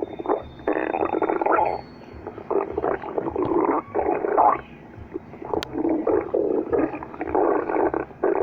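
Cartoon stomach growling sound effect: a string of gurgling rumbles, each under a second long, with short gaps between.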